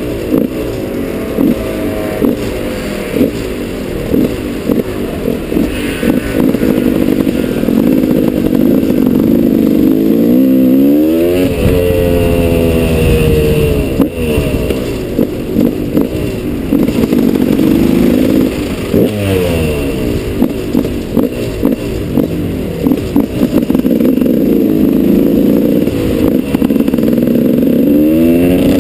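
KTM 200 EXC's single-cylinder two-stroke engine heard onboard, running at part throttle through slow traffic. The revs climb sharply about ten seconds in and again near the end.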